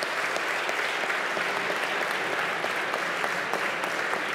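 Large audience applauding steadily in a big hall, many hands clapping.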